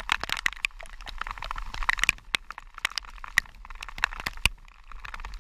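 Heavy rain: raindrops striking close to the microphone as many irregular sharp clicks, over a steady hiss of falling rain.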